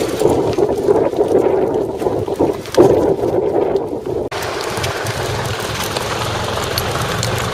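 Outdoor street noise with wind rumbling on the microphone as the camera moves along at walking pace. About four seconds in it changes abruptly to a steadier, wider hiss of traffic with a low hum.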